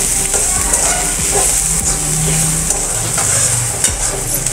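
Metal spatula stirring and scraping onions, peanuts and chillies through hot oil in a kadhai, with irregular clicks and scrapes over a steady sizzle as the turmeric and salt are mixed in.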